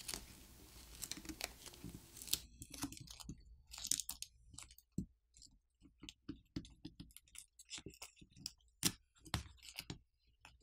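Adhesive graphite film being peeled off a phone's batteries: a continuous crackling tear for about the first two and a half seconds, then scattered crinkles and ticks as the film is pulled further and handled.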